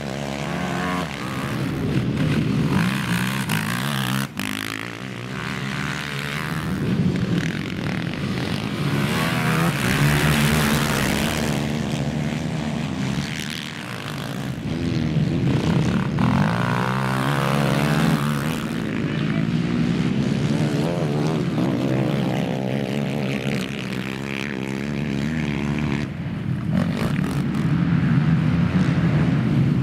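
Racing quads on a dirt motocross track, their engines revving hard and easing off as several ride past one after another, so the engine pitch keeps rising and falling and the sound swells and fades with each pass.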